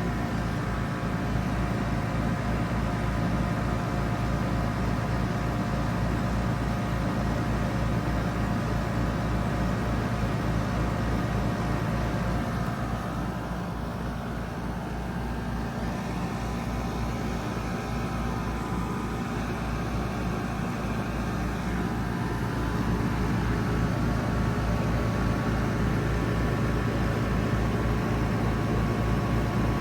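Outdoor unit of a 3-ton Trane XR14 heat pump running, its compressor and fan giving a steady low hum. The level dips slightly midway and rises a little about two-thirds of the way through.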